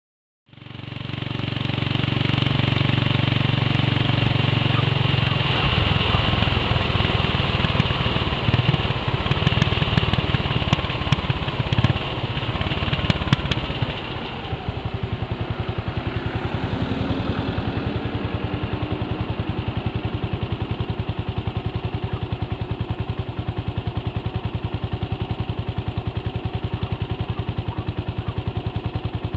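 Ural sidecar motorcycle's flat-twin engine running, heard from the sidecar. About halfway through it settles into a steady, even beat.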